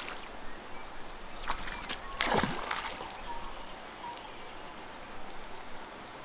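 A hooked trout splashing at the water's surface as it jumps, one short splash about two seconds in after a smaller one just before it; the fish throws the lure on the jump. Faint bird calls near the end.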